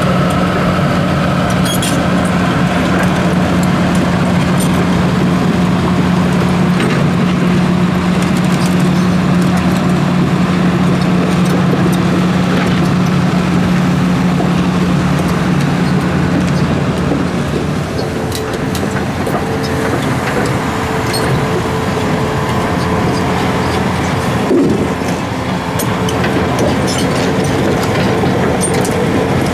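Volvo EC480D hydraulic excavator's diesel engine running with a steady hum that drops away about two-thirds of the way through, with scattered clicks and knocks from the dirt and crushed concrete it is digging.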